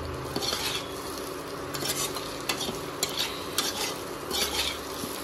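Diced boiled potatoes and spice masala frying in a non-stick pan, stirred with a perforated plastic spatula: a steady sizzle with irregular scraping strokes of the spatula against the pan.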